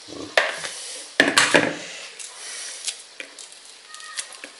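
Hands peeling a blanched clementine: the softened peel tearing and rustling off the fruit, with two louder bursts of handling noise, just after the start and about a second in.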